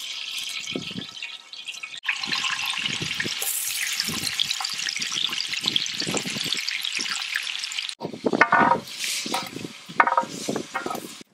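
Butter sizzling as it melts in hot oil in a large metal pot over a wood fire: a steady crackling fizz. About eight seconds in, the sizzle drops away and a few louder, sudden sounds follow.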